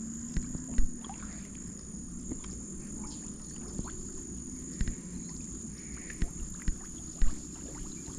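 Shallow river water sloshing around a person working a cast net by hand, with a few sharp knocks and a steady high whine.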